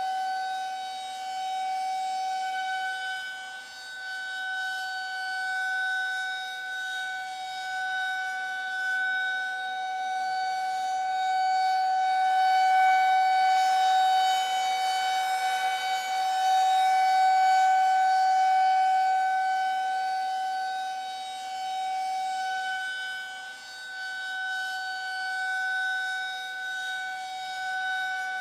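Civil-defence air-raid siren holding a steady pitch, its loudness slowly swelling and fading. This is the air-raid warning signal telling people to take shelter immediately.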